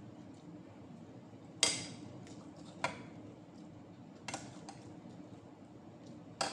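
Tableware clinking and knocking: about five short, sharp clinks of dishes, a glass bowl and a spoon, the loudest about a second and a half in.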